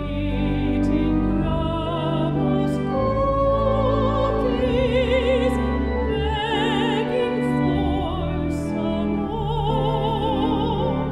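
Mezzo-soprano singing with vibrato, the line "Eating Grandma's cookies, begging for some more", over sustained organ chords.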